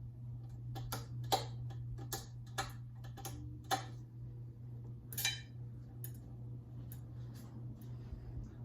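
A Westinghouse 42-inch alloy ceiling fan's motor running with a steady low hum, with irregular clicks and ticks over it, about one or two a second.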